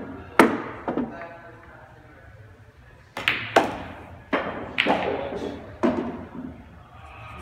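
Pool balls clacking: the cue tip striking the cue ball and hard ball-on-ball hits. There are two sharp knocks about half a second and a second in, then five more between about three and six seconds.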